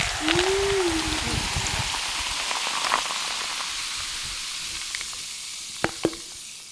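Cheerwine Zero cherry soda fizzing over ice in a tall tumbler, a crackling hiss that slowly fades as the bubbles settle. Two light clicks near the end.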